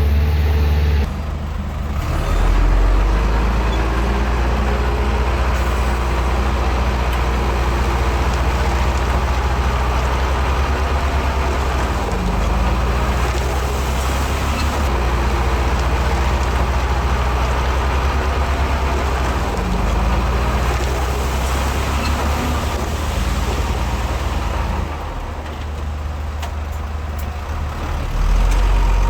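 Heavy diesel earthmoving machinery running steadily with a deep engine note, which swells louder briefly a couple of seconds in and again near the end.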